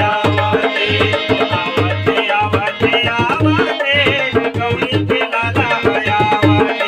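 Instrumental folk-style music led by tabla, with a steady repeating low drum beat and a wavering melody line over it.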